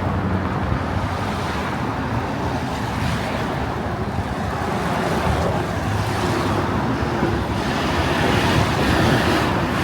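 Road traffic noise from cars driving by, a steady rumble that grows louder in the second half.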